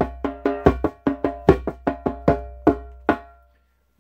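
Djembe struck with a bird puppet's beak in a fast, even run of taps, about five a second, each with a short pitched ring. The tapping stops about three seconds in.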